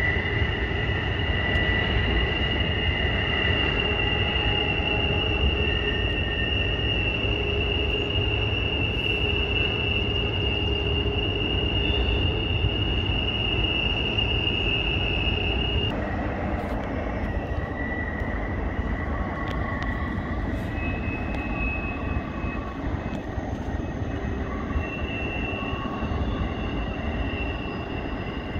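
Long intermodal freight train's wheels squealing as it rounds a sharp curve, over a steady low rumble. Several high squeals hold steady, the highest cuts off about halfway, then shorter squeals come and go.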